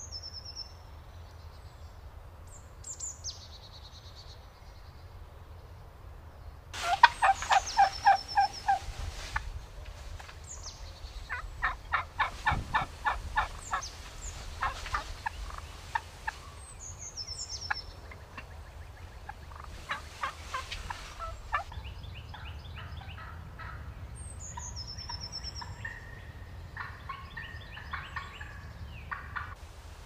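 Turkeys gobbling. A loud, rapid rattling gobble comes about seven seconds in, followed by several more gobbles, the later ones fainter, with short high chirps of a small bird in between.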